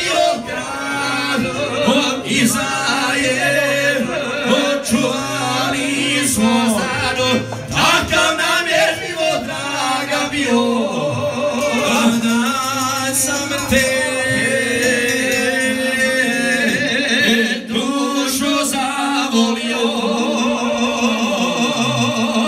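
Two men singing a Croatian folk song together into microphones, amplified through a PA, with long held notes in the second half.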